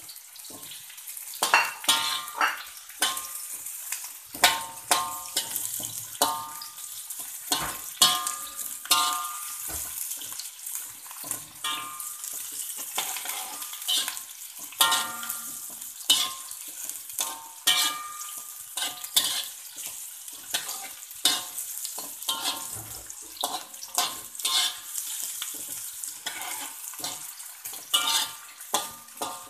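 A metal spatula scraping and clanking against a steel wok, about once a second, each stroke ringing briefly, as sliced red onion, ginger and pandan leaves fry in ghee with a steady sizzle.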